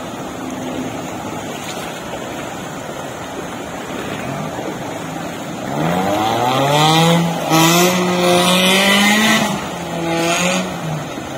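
Rushing river water, then an off-road 4x4's engine revving up about halfway through and held at high revs as it ploughs through the river, easing off briefly twice and dropping away near the end.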